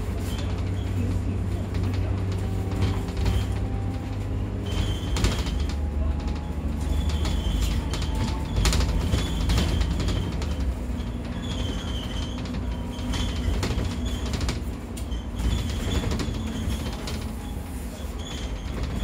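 Ride inside the upper deck of a KMB double-decker bus on the move: the diesel engine runs steadily under load while panels and fittings rattle and creak with frequent short knocks.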